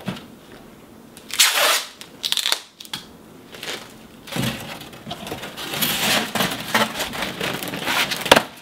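Paper and cardboard rustling and scraping as white sheets are handled and pulled from a cardboard box. There are a couple of short crinkles early on, then steadier rustling with small clicks from about halfway through.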